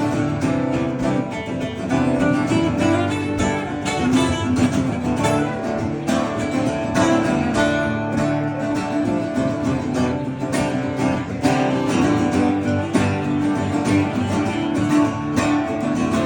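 Acoustic guitar playing an instrumental break in a live song, strummed chords with picked notes in a steady rhythm.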